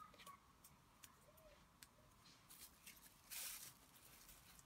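Near silence with faint clicks and light rustling from hands handling a freshly cut gumpaste petal and its scraps on a cutting mat, with one brief louder rustle about three and a half seconds in.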